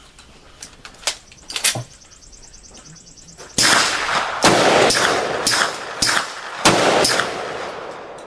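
Suppressed pistol firing about seven shots in quick succession, roughly half a second apart, each report sharp and trailing off. A few light clicks of gun handling come before the first shot.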